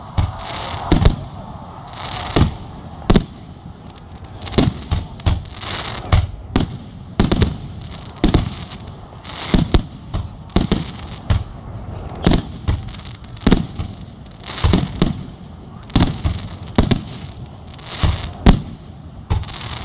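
Aerial fireworks display: a rapid, irregular series of sharp bangs from shells launching and bursting, a little more than one a second.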